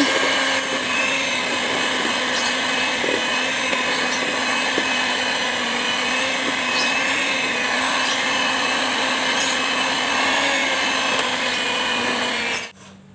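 Electric hand mixer running steadily, its beaters working flour into creamed butter for cookie dough. The motor cuts off suddenly near the end.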